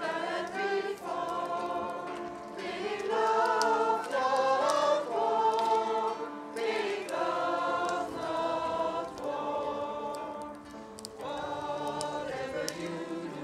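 Mixed choir of men and women singing a song in English in long held phrases, with a quiet guitar accompaniment.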